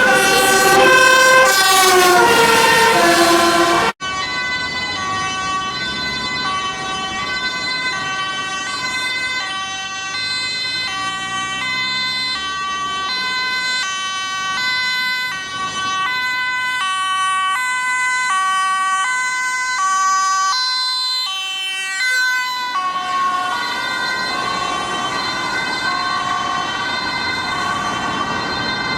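Dutch fire engine's two-tone siren, alternating between a high and a low note about once a second as the truck drives under emergency lights and siren, with road noise beneath it. The first few seconds hold a short run of stepped, falling tones before a sudden cut.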